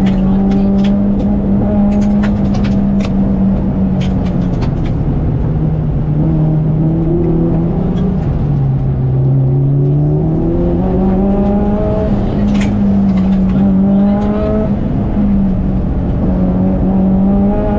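Subaru Impreza WRX STI's turbocharged flat-four engine heard from inside the cabin, running at steady revs, dropping in pitch about halfway through as the driver eases off, then climbing again under acceleration. Steady road and tyre noise underneath, with scattered sharp ticks.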